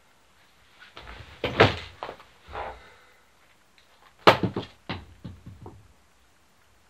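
A run of knocks and thuds from a person moving about and sitting down on a plastic chair, loudest about a second and a half in and again just after four seconds, with smaller knocks following until about six seconds in.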